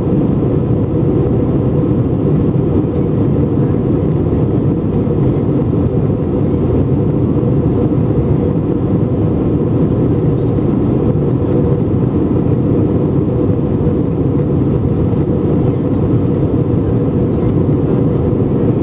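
Steady cabin roar inside an Airbus A320-232 in flight, the even drone of its IAE V2500 engines and the airflow past the fuselage, heavy in the low end.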